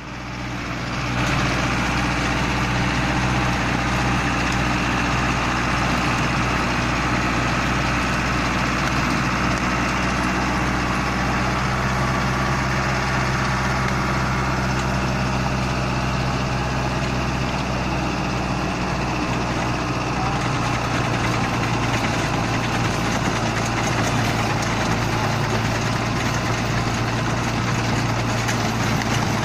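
Mahindra Arjun Novo 605 DI-i tractor's 57 hp four-cylinder diesel engine running steadily under load while driving a rotavator through soil and cut branches, rising in over the first second and then holding an even level.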